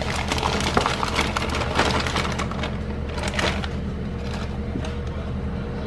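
Plastic bag of frozen fruit crinkling and rustling as it is handled and fruit is scooped out of it. The crackling is densest in the first few seconds, then thins out.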